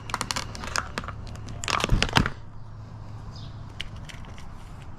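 Stiff plastic blister pack being forced and torn open, a dense run of crackling and crunching that is loudest about two seconds in, then a few scattered clicks.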